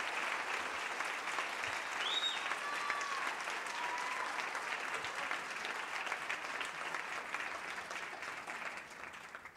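Audience applauding, with a couple of voices calling out over the clapping about two seconds in; the applause fades away near the end.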